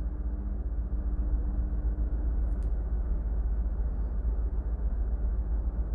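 Steady low rumble of running machinery in a ship's engine room, with a single faint metallic click about two and a half seconds in.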